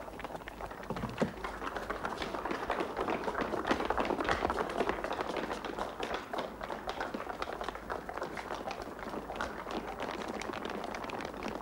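Hurried footsteps of several people running on a hard street, a dense patter of steps that swells in the middle and then eases.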